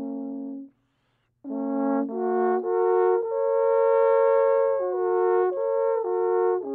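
Two alphorns playing a slow melody in two-part harmony, with long held notes that step from pitch to pitch. The music drops out completely for under a second near the start, then resumes.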